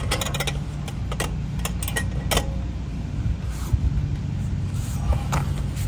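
Metal clicks and clinks of a wrench working on the brake caliper bolts as they are tightened hard. They come in a few scattered groups over a steady low hum.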